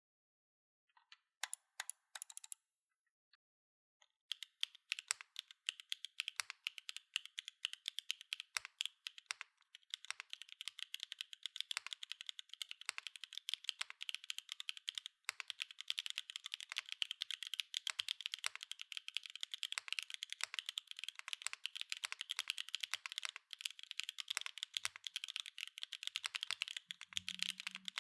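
Mode Encore mechanical keyboard with Obscura linear switches on an aluminium plate, no foam inside, being typed on. A few single keystrokes come first, then steady typing starts about four seconds in and grows faster and denser from about ten seconds.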